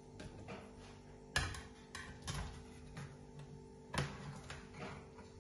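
A metal slotted spatula cuts through baked cheese-topped cauliflower and knocks against the baking dish, giving a few sharp clicks, the strongest about a second and a half in and again about four seconds in. Soft background music plays steadily underneath.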